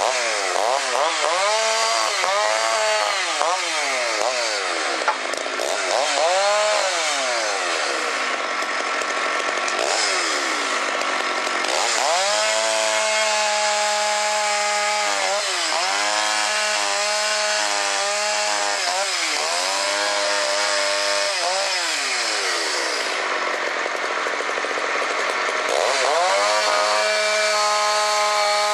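Two-stroke chainsaw revving up and down in repeated quick blips, then held at high revs for long stretches while cutting through wood, dropping back briefly between cuts.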